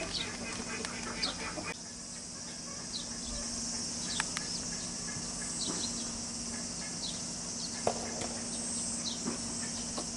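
A steady high insect drone with short, high bird chirps every second or so.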